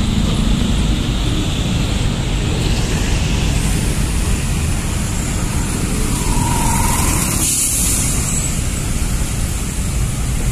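Heavy road traffic passing at close range: cars, a box truck and a bus driving by with a steady rumble of engines and tyres.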